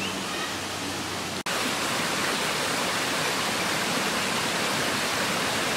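Steady rushing noise of running water, like a stream, with a brief dip about a second and a half in.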